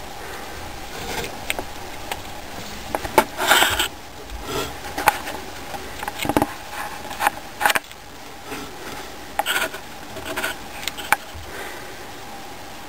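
A ground squirrel (suslik) eating a biscuit held in its paws: irregular crisp crunches and clicks, some in quick clusters, over a faint steady hum.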